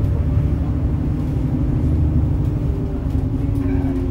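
Low engine drone and road rumble heard from inside a moving bus, steady throughout.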